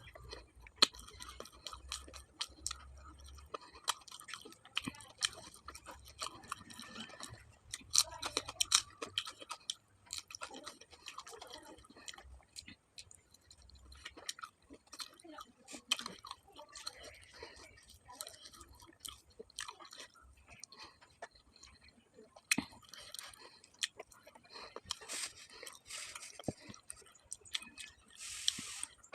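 A person chewing and eating close to the microphone: irregular wet smacks and small clicks of the mouth, going on throughout.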